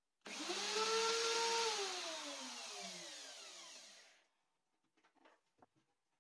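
A small electric motor starts abruptly and runs with a whine and rushing noise, then is switched off and winds down, its pitch falling until it stops about four seconds in. Faint small clicks follow.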